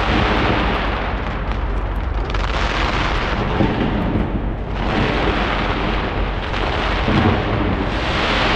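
A skyscraper fireworks display going off in a dense, continuous barrage of bangs and crackle. The barrage thins briefly about two and a half seconds in and again near five seconds, then builds back up.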